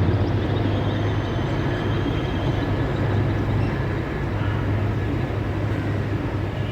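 Mi-17-1V helicopter flying past, its main rotor's rapid low chop over the engine noise, growing a little fainter over the first couple of seconds.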